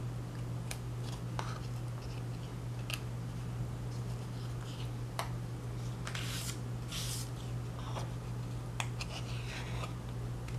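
Scissors cutting notches into a piece of cardboard: scattered sharp clicks of the blades and two longer snips about six and seven seconds in. A steady low hum runs underneath.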